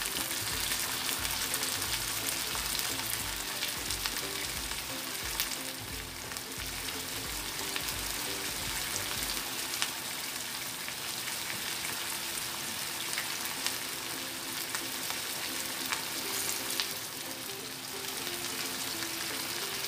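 Sliced carrots, bell pepper and onion sizzling and simmering in vinegar in a frying pan, with a steady hiss. A wooden spatula stirs and scrapes through the vegetables now and then.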